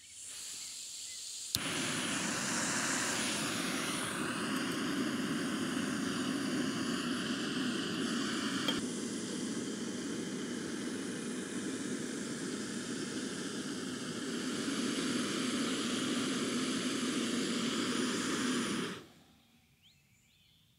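Odoland screw-on canister camping stove being lit: a quiet hiss of gas, a sharp click from its igniter about a second and a half in, then the burner's steady roar under a pan of water. The roar drops away near the end.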